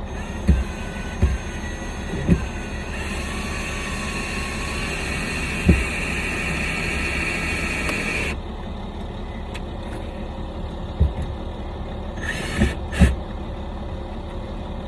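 Scattered knocks and clatters of hand tools being handled and put away, over a steady low hum. A hiss starts about three seconds in and cuts off suddenly about five seconds later.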